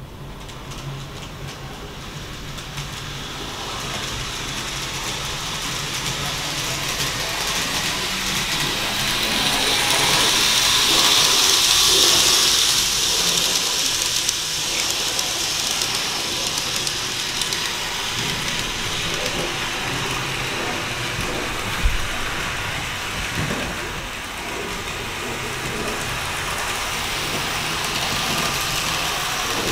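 An N-gauge model train running on its track: a rushing, rattling sound of small wheels and motor that grows louder over the first ten seconds or so, then runs on steadily, with one sharp click past the middle.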